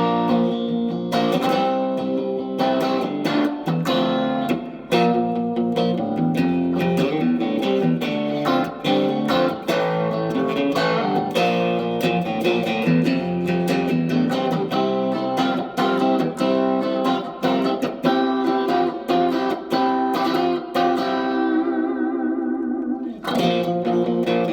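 Reverend Eastsider S electric guitar played through an amp on the in-between 'quack' pickup setting, with the gain dialed back slightly. It plays a continuous run of single notes and chords, and about 21 seconds in a chord is left ringing and fading before the playing starts again.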